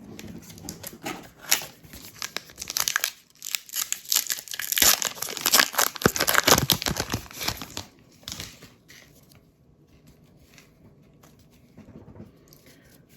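A trading-card pack's wrapper being torn open and crinkled by hand, a dense crackling that is loudest in the middle, then only a few faint rustles and clicks over the last few seconds.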